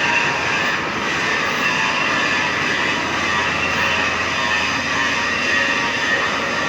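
Metal lathe running and cutting a workpiece: a steady, dense machining noise with a cluster of high, steady tones that holds throughout.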